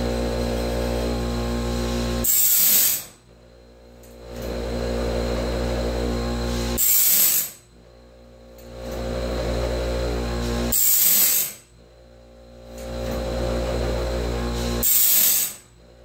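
Sawmill band blade sharpener's grinding wheel running steadily, taken down onto a Wood-Mizer Turbo 7 band tooth about every four seconds: four short, bright grinding passes, each followed by a sudden dip in level as the band is moved on to the next tooth. The teeth are being ground until the glint of damage from the band hitting something is gone.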